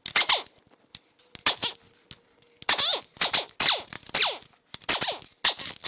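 A run of short metallic tool sounds, about ten in all at uneven spacing, as small 13 mm bolts are worked out of an engine's timing cover.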